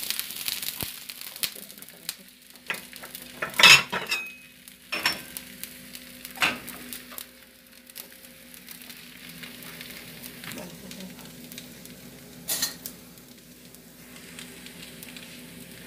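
Broth-dampened corn tortillas sizzling quietly on a hot comal, with a few sharp clinks and knocks of a spoon against a bowl, the loudest about four seconds in.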